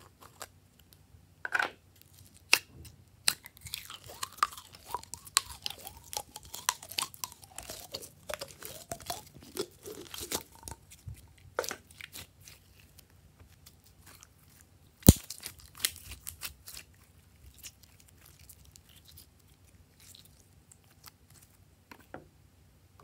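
Clear pink glitter slime squeezed and kneaded by hand, making dense wet crackling and popping squishes, with scattered clicks of its plastic container. One sharp, loud click about halfway through; the handling grows softer and sparser toward the end.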